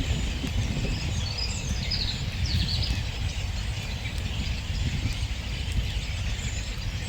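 A mixed flock of finches chattering, with many short high calls overlapping, over a steady low rumble.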